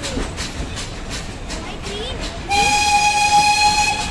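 Train rolling with clicks of the wheels over rail joints, then about two and a half seconds in the steam locomotive's whistle sounds one steady high note for about a second and a half.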